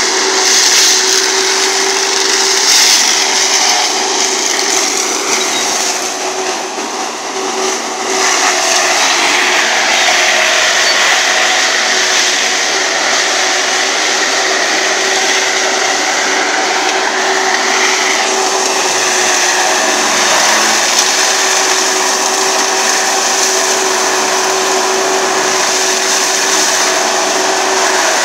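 Galotrax 300 tracked forestry mulcher running hard as it grinds brush: a loud, steady machine noise with a constant high whine, dipping briefly near the start and then holding steady.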